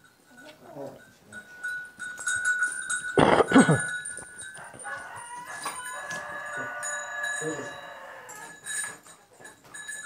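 Rooster crowing once, a long drawn call of about two seconds starting around six seconds in. A louder, lower sound comes about three seconds in.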